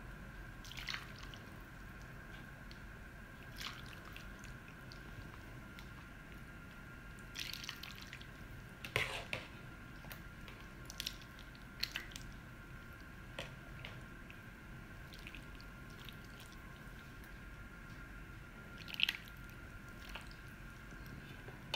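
Thick tomato sauce being spooned over chicken and vegetables in a glass baking dish: scattered soft wet plops and light spoon taps, the sharpest one about nine seconds in, over a faint steady hum.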